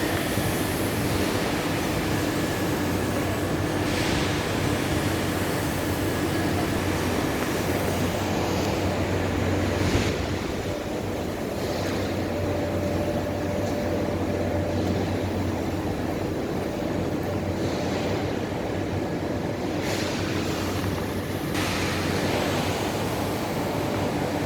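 Steady rush of rainwater pouring through and over a choked street drain, with a faint low hum underneath.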